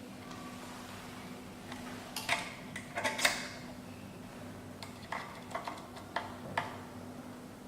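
Sharp metal clicks and clinks from handling a key cutting machine's cutter and decoder as a cutter is fitted in place of a decoder, in two clusters, over a faint steady hum.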